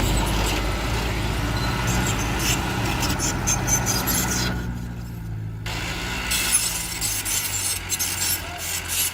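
A heavy earthmoving vehicle's engine running steadily, with scattered clatter over it. The engine drone fades somewhat after about seven seconds.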